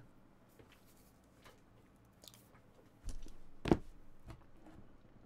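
A sealed, shrink-wrapped trading-card hobby box being handled and set down on a rubber play mat: a soft rustle about three seconds in, then one sharp knock as it lands, with small handling sounds after.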